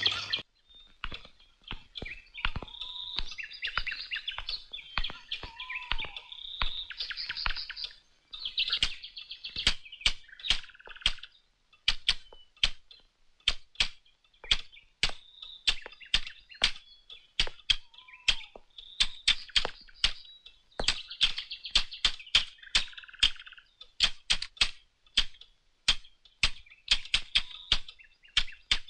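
A Braille typewriter being typed on: dozens of sharp key strokes at an uneven pace, some in quick runs and some spaced apart. Birds chirp and whistle behind the typing.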